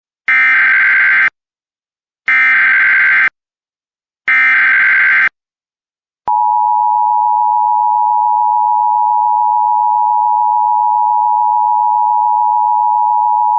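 Emergency Alert System header: three one-second bursts of screechy digital data tones a second apart, then, about six seconds in, the loud steady attention tone begins, announcing an emergency alert.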